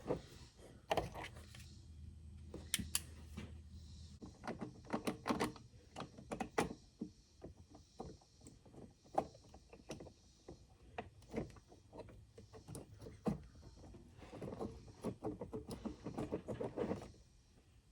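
Irregular clicks, knocks and clatter of hard objects being handled, with a quick run of rattling clicks near the end. A low hum sounds briefly about a second in.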